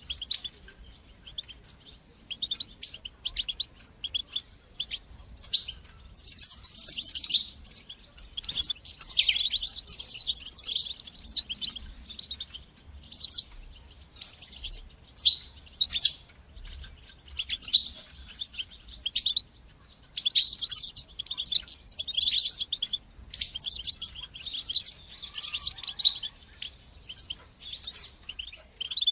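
European goldfinch singing: rapid, high twittering and trilled phrases in bursts, broken by short pauses.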